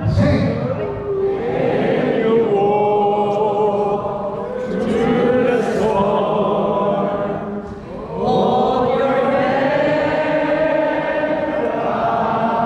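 A large group of voices singing a slow song together without accompaniment, holding long notes, with a short break about eight seconds in before the next line begins.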